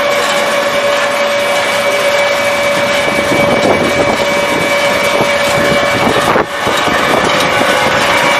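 Wood pellet production machinery running steadily: a loud, even mechanical noise with a steady whine over it. The sound drops out briefly about six seconds in, then carries on.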